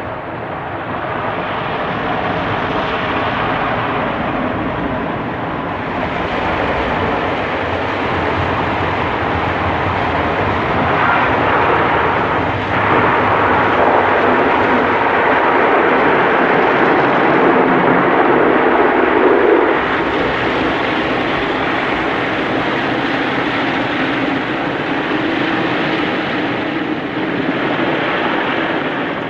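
Kärcher rollover car wash at work, heard from inside the car: its rotating brushes scrub the body while water sprays over the glass, a loud, steady rush of noise that swells for a while in the middle.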